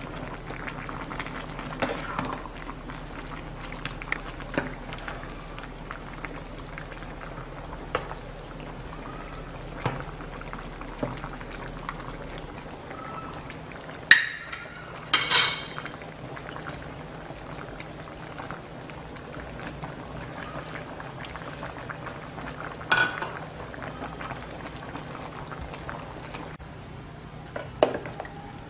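A pot of soup bubbling at a steady boil while a metal ladle stirs it, clinking against the side of the metal pot now and then, loudest about halfway through and again near the end.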